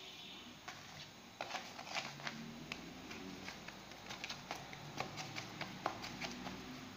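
Oiled hands patting and pressing squares of semolina dough against a metal tray: faint, irregular soft taps and clicks.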